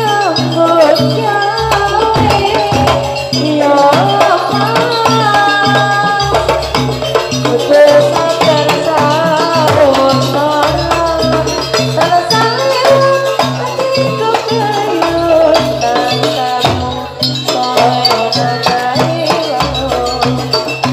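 Live Banyuwangi jaranan barong ensemble music: percussion keeping a steady beat under a wavering, gliding melodic lead, with a deep low stroke every four to five seconds.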